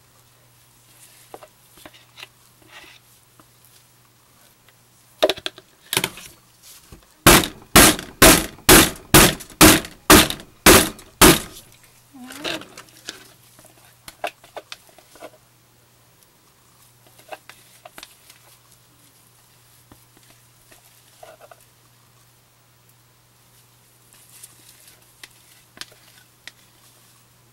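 A rapid run of about a dozen loud, evenly spaced knocks, about two and a half a second, most likely the wooden soap loaf mold rapped on the stainless steel counter while it holds freshly poured soap batter. Quieter taps and scrapes of a spatula dolloping batter come before and after.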